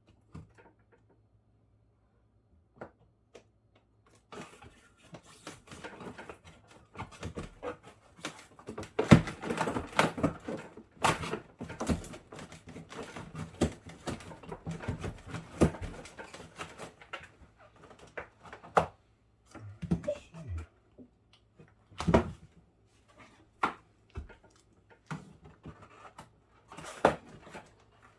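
Plastic interior panels of a Samsung Zipel refrigerator's fridge compartment being pried and worked loose by hand, starting about four seconds in: a run of irregular clicks, knocks and scraping, the panels stuck fast with ice. The loudest knocks come about nine to eleven seconds in and again near twenty-two seconds.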